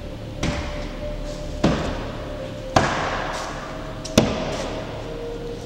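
Heavy pounding on a door: four loud bangs about a second and a half apart, each ringing on briefly as it dies away.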